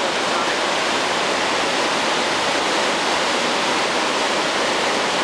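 River whitewater rushing and churning steadily over rapids, an even, unbroken sound of fast water.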